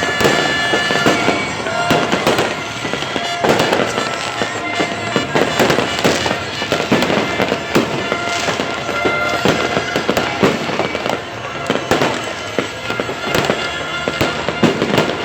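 Fireworks going off without pause: a dense run of bangs and crackling bursts. Steady blaring horn-like tones sound over them at times.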